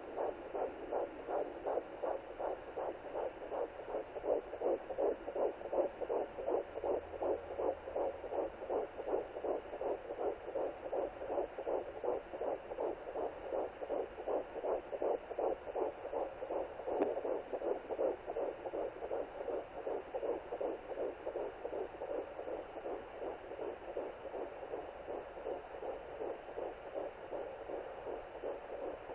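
Fetal heartbeat at 11 weeks picked up by a Sonoline B pocket fetal doppler: a fast, even whooshing pulse of about two to three beats a second.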